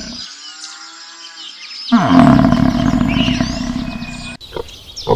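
Animal calls cut one after another: a quieter pitched call, then a loud, low, roaring call starting about two seconds in, then short grunts starting near the end.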